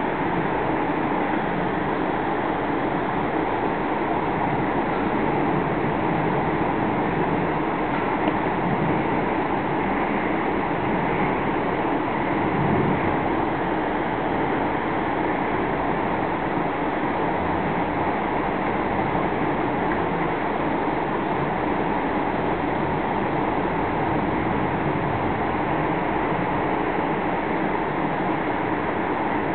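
Steady, unbroken rushing of a mountain river below, an even roar of flowing water with no distinct events.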